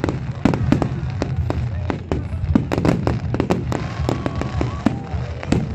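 Fireworks display: a rapid, irregular string of sharp cracks and bangs over a steady low rumble.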